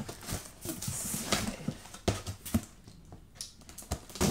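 Hands handling a cardboard shipping box: fingers picking and scratching at its packing tape, with scattered light taps and knocks on the cardboard.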